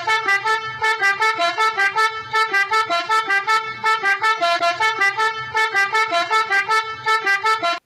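Toy pianika playing a telolet basuri bus-horn tune: a quick string of bright, horn-like notes at about five a second, with short breaks near two, four and five and a half seconds in. It starts and stops abruptly.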